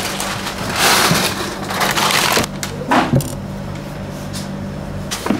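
Cold butter being cut and handled on a plastic sheet, a rough crunching scrape followed by a knock about three seconds in, over a steady low machine hum.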